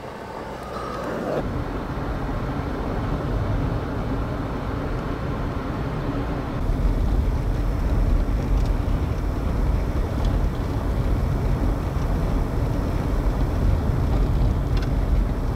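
A GMC SUV driving slowly through deep snow for a moment, then the steady low rumble of driving along a snow-covered highway: tyre and road noise with engine hum. The rumble gets louder a little before halfway through.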